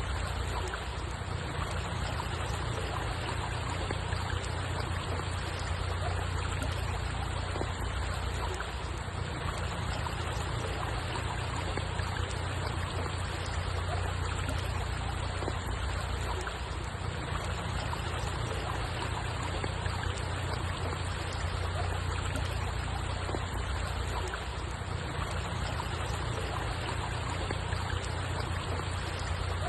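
Water flowing and trickling in a steady, unbroken rush, heaviest at the low end.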